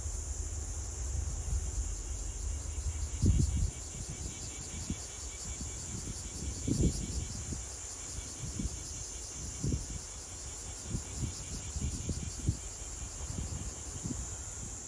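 Wind buffeting the microphone in irregular gusts, the strongest about three seconds in, over a steady high-pitched trill of insects.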